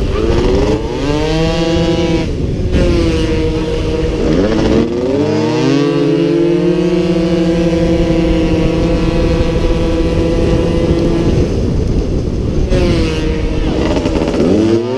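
Engine of a 50cc racing motorcycle heard onboard at high revs, its pitch falling sharply and climbing again several times, with a long steady stretch held flat out in the middle. Wind rushes over the microphone throughout.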